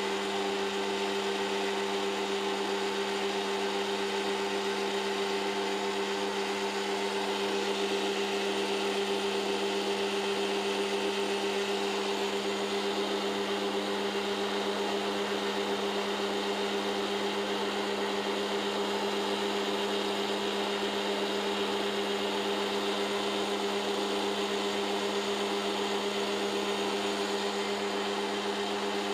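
DeWalt DW735 thickness planer running with no load, its universal motor and cutter head giving a steady whine with a strong hum that does not change.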